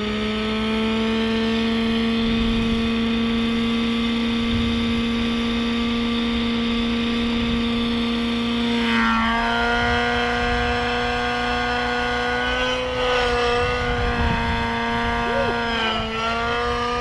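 Radio-controlled helicopter's nitro engine and rotors running steadily in a hover, a constant high whine. The pitch drops slightly about halfway through and wavers a couple of times near the end as the throttle and pitch are corrected.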